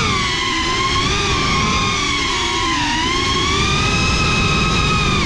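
FPV drone's motors and propellers whining, the pitch sliding up and down with the throttle.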